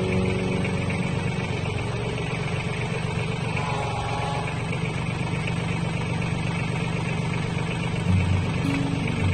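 Mahindra 1526 compact tractor's diesel engine running steadily, with a brief rise in level about eight seconds in.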